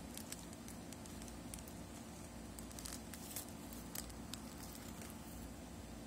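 Faint scattered small clicks and ticks, a few a second, of small screws and tools being handled, over a steady low hum.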